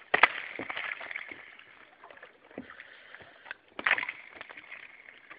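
Thin ice, about a centimetre thick, cracking and clinking as it is broken and pushed through, over water sloshing. The sharpest cracks come just after the start and again about four seconds in.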